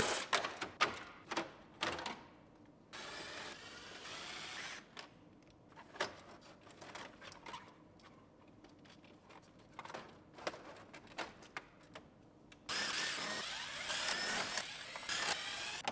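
A cordless drill runs in two spells of a couple of seconds each, one about three seconds in and one shortly before the end, backing screws out of a pickup's dashboard. Between the spells come small clicks and knocks of plastic trim and hand tools.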